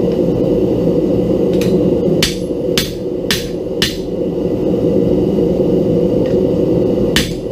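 Blacksmith's hammer striking metal: five quick blows in about two seconds, a pause, then one more blow near the end. A steady low rushing noise runs underneath.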